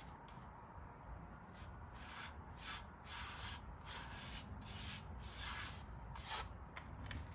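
Paintbrush stroking paint onto the side panel of a shelving unit: a series of short, faint brushing swishes, roughly two a second, starting about a second and a half in.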